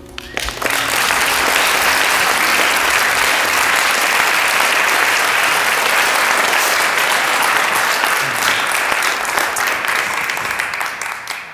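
Audience applauding steadily, many hands clapping at once; it starts about half a second in and dies away near the end.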